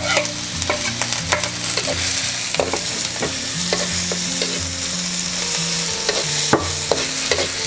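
Sliced onion and julienned carrot sizzling in hot oil in a hammered wok, stirred with a slotted spatula that scrapes and clicks against the pan at irregular intervals. It is the steady sizzle of vegetables just added to hot oil for a stir-fry.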